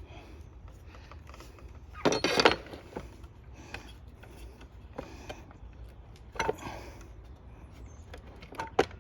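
Metabo HPT circular saw being handled while its blade setting is adjusted: a rattling clatter about two seconds in, another knock around six and a half seconds, and a sharp click near the end, with quieter handling noises between.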